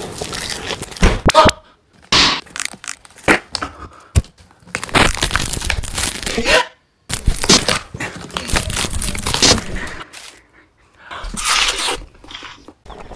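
Cardboard being bitten, torn and chewed: repeated ripping and crunching in bursts, a few short ones and then longer stretches of a second or more, with short pauses between.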